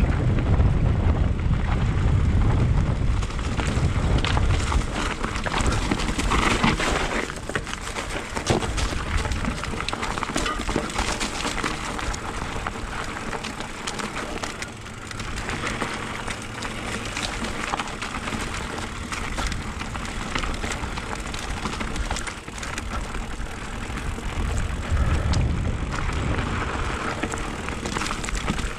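Mountain bike being ridden along a dirt trail: tyres crunching over dirt and the bike rattling with many small knocks. Wind buffets the action-camera microphone, heaviest at the start and again near the end.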